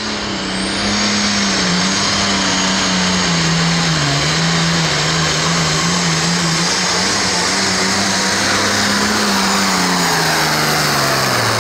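Turbocharged diesel engine of a Farmall pro farm pulling tractor running flat out while dragging the weight sled, a steady high engine note that wavers and dips slightly, then falls away sharply near the end.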